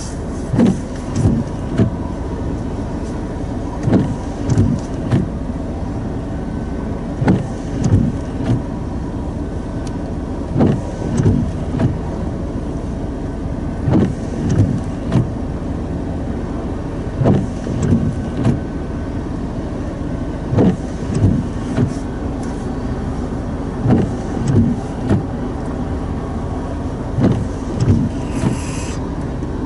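Slow-moving freight train rolling past, its wheels knocking over a rail joint in regular groups of about three clicks every three seconds or so, over a steady low rumble. A brief hiss comes near the end.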